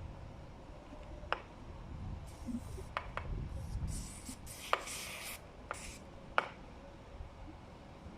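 Hand cleaning of a car's sunroof track: rubbing and handling noises, several sharp clicks, and a few short hissing bursts in the middle, like a cleaning product being sprayed.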